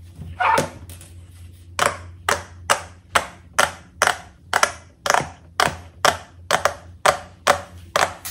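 Giant square silicone pop-it fidget toy being popped by hand, its bubbles snapping through in sharp pops about two a second, with a short pause about a second in.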